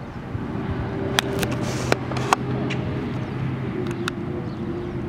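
Golf club striking a ball off the tee: a sharp click about two seconds in. Under it runs a steady motor drone from a vehicle.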